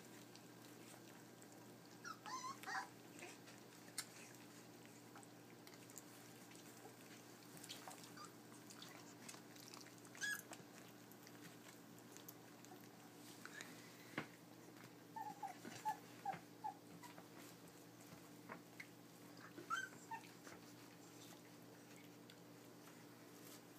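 Faint, scattered high-pitched whimpers and squeaks from three-week-old puppies, including a quick run of four short squeaks past the middle, with a few small sharp clicks between them.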